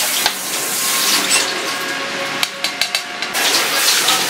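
Kitchen tap running into a metal sink as a cucumber is rinsed under the stream, with a few sharp clicks about two and a half seconds in.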